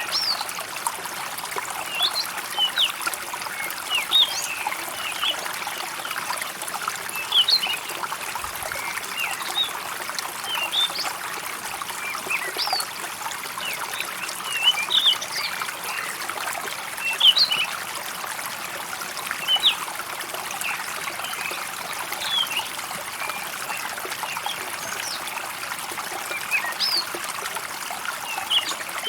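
Water trickling steadily, like a small stream, with birds chirping in many short, high calls scattered throughout.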